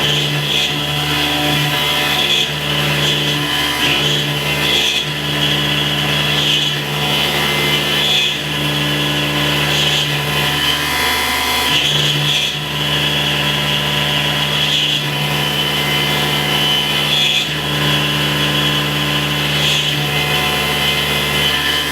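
Tormach PCNC 1100 CNC mill cutting a block of 6061 aluminum with a 1/4-inch two-flute high-speed steel end mill at about 4,000 RPM: a steady cutting hum with a high whine over it, briefly dipping and shifting every few seconds.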